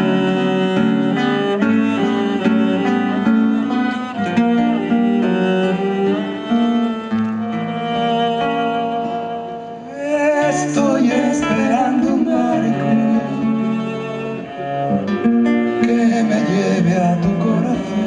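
Live acoustic band music: bowed strings (cello and violin) with guitar and bass play sustained, changing chords. About ten seconds in the music brightens, with a wavering lead melody and cymbal shimmer.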